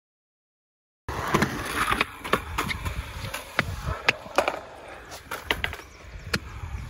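About a second of silence, then a skateboard on concrete: irregular sharp clacks and knocks of the board against the pavement and edge, roughly every half second, over a low rumble.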